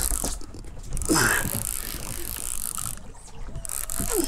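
Fishing line running off a reel's spool as an inchiku jig sinks toward deep water: a steady high hiss that drops away briefly twice.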